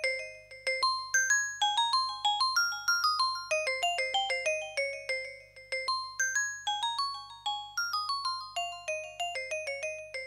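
Electronic music: a quick melody of short struck notes, several a second, each dying away fast, with no drum beat under it.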